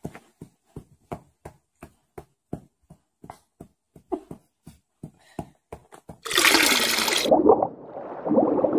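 A dog's tail thumping on a leather couch in a steady beat, about three soft thumps a second. About six seconds in, a loud rushing, swirling whoosh takes over: a transition sound effect that plays over the title card.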